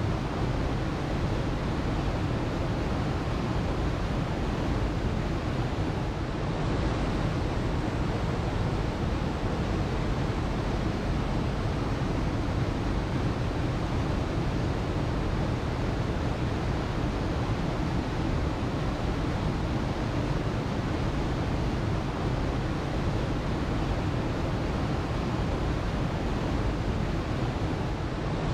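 Waterfall: a steady, unbroken rush of falling water, heavy in the low end.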